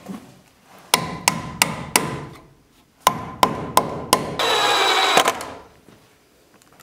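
Hammer driving nails to fasten a metal electrical box to a wood stud: two runs of four sharp strikes, each leaving a short ringing tone. Near the end a brief steady rasping noise lasts under a second.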